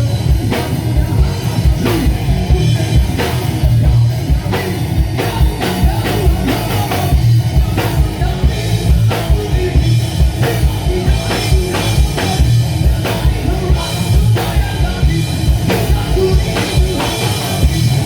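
Live band playing rock music: drum kit with regular hits over guitar and a heavy bass.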